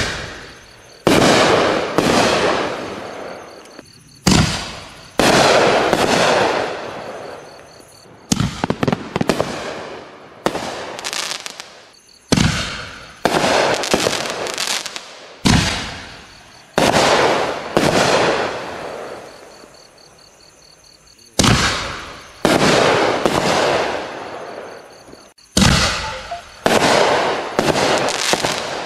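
Consumer reloadable ball shells, double-break type, fired one after another from a mortar tube. Each shell gives sharp bangs, one per break, and each bang has a fading tail that dies away over a second or two.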